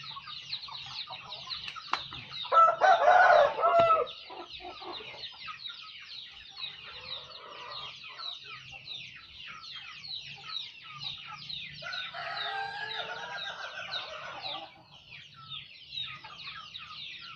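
A flock of chickens: a rooster crows loudly about two and a half seconds in, and a second, softer crow or call comes around twelve seconds in, over constant quick, high cheeping and clucking.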